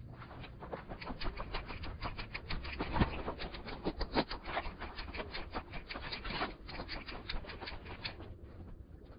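Footsteps crunching on a dry, gravelly dirt and rock trail, a quick irregular run of crackles several a second, with one louder thump about three seconds in.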